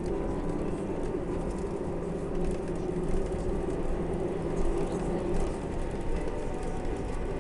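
Jet airliner cabin noise while taxiing: a steady engine hum over a low rumble from the undercarriage rolling on the taxiway, with a few brief louder bumps in the middle.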